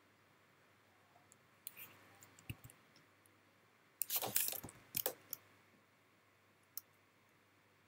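Scattered light clicks and taps at a computer desk while drawing. A short scratchy rustle about four seconds in is the loudest part, followed by a few more clicks just after five seconds and one near the end.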